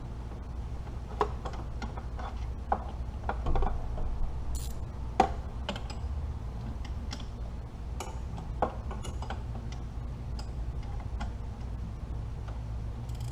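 Wrench working on engine-bay bolts: scattered, irregular metallic clicks and taps, the loudest a little past halfway, over a steady low hum.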